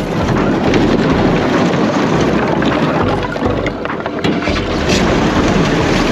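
Heavy farm machine's engine running under load, with wind buffeting the microphone and some rattling knocks.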